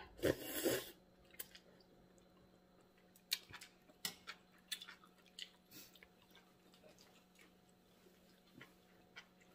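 A loud slurp of leafy greens and broth about half a second in, then soft chewing and scattered light clicks and taps of metal tongs in a stainless steel hotpot.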